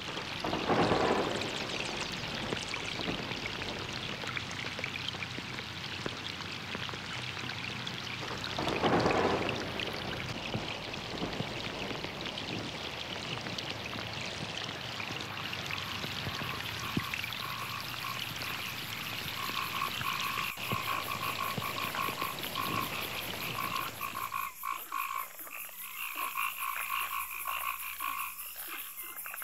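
Steady rain with two loud rolls of thunder, about a second in and again about nine seconds in. From about halfway, frogs start croaking in a pulsing chorus, and the rain stops a few seconds before the end, leaving only the frogs.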